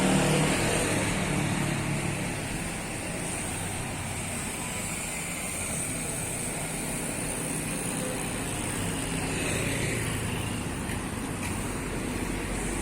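City street traffic: a passing motor vehicle's engine fades away in the first second or two, leaving a steady hum of traffic.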